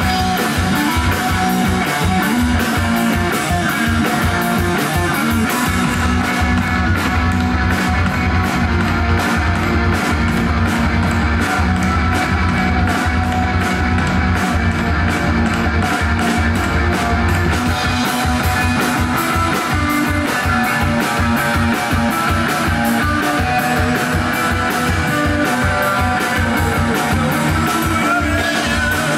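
Live rock music: electric guitar and drum kit playing an instrumental passage with a steady beat.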